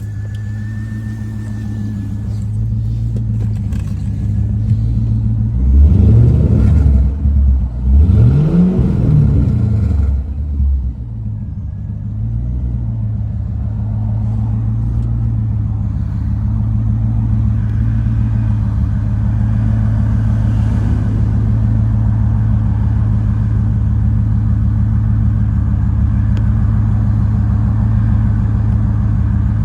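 C5 Corvette's 5.7-litre V8 idling rough. It is blipped twice in quick succession, about six and eight seconds in, each rev rising and falling back, then it settles back to its uneven idle.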